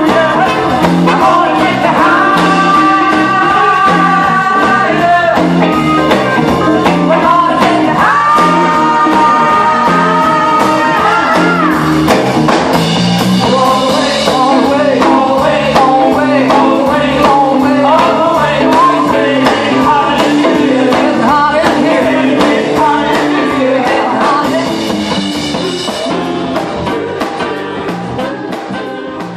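Live soul band playing: singers' voices over drums and guitar, with two long held harmony notes in the first half. The music fades out near the end.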